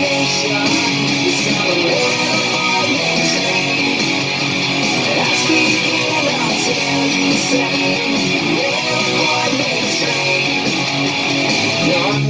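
EVH Standard electric guitar strummed with a pick, playing continuous chords in a steady driving rhythm.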